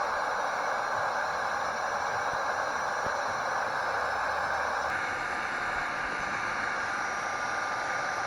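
Electric heat gun blowing hot air with a steady rushing hiss while softening polyethylene plastic into a hole in a kayak hull. About halfway through the sound changes abruptly, and a thin steady whine rides on the airflow.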